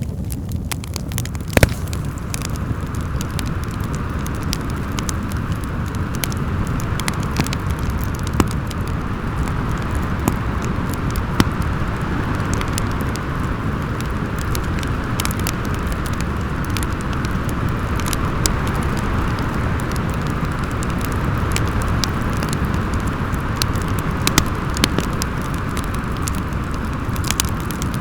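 Wood fire crackling, with scattered sharp pops, the loudest about one and a half seconds in, over steady wind that rumbles low and howls.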